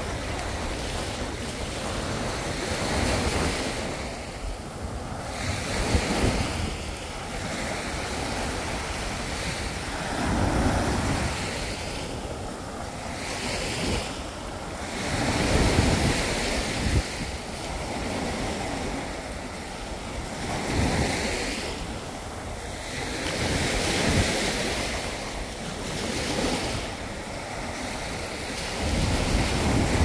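Small Caribbean Sea waves breaking and washing up a sandy beach, the surf rising and falling every four or five seconds, with wind buffeting the microphone.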